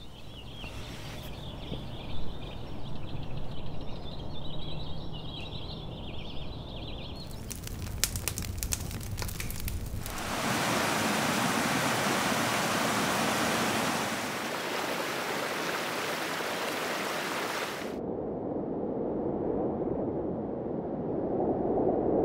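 A layered nature soundscape: a low rumble with high chirping over it, then a rapid run of clicks about eight seconds in. A mountain stream cascading over rocks then rushes loudly for about eight seconds, and gives way to a lower, duller rushing that swells toward the end.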